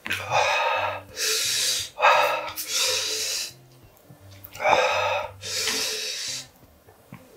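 A man breathing hard in a run of about six loud gasps and puffs, the heavy breathing of someone eating very spicy ramen, over soft background music.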